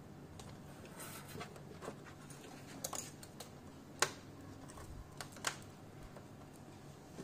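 Scattered light clicks and taps of small tools and parts being handled on a workbench, the sharpest about four seconds in, over a faint steady hum.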